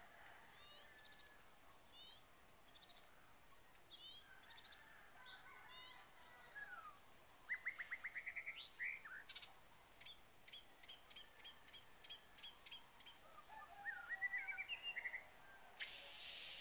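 Several wild birds singing and calling, faint: scattered short chirps, a rapid trill of about ten notes about halfway through, then a run of short repeated notes and more chirps near the end.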